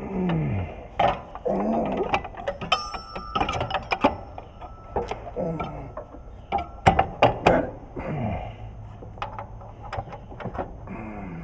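Sharp metallic clicks and clanks of steel brackets, bolts and tools being handled while trash whippers are fitted to a planter row unit, the loudest knocks coming in a cluster about seven seconds in. A person's voice sounds now and then between them.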